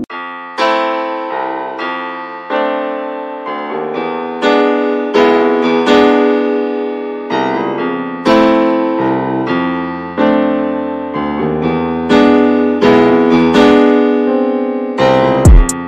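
Background music: piano playing a run of struck, decaying chords. A deep drum hit with sharp ticks comes in near the end.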